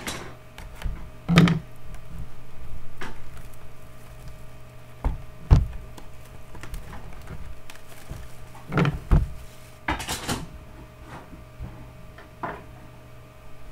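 Scattered clicks and knocks from a cardboard trading-card box being handled and pried open, mixed with a dog clicking a small stick in the background, over a steady low hum.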